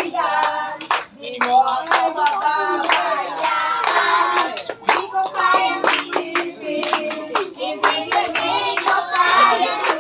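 A group of children singing together, with hands clapping along.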